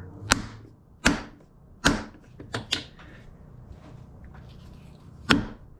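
A lead hammer tapping a block of aluminum down into a milling machine vise, seating it: about six sharp knocks, most roughly a second apart with a quick double among them, then a pause before a final knock.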